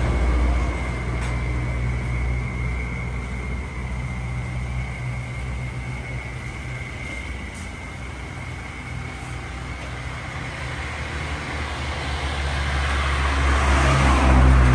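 Motor vehicle engine rumble with road noise. The sound fades through the middle, then swells to its loudest near the end as a vehicle passes close. A thin steady whine runs through the first half.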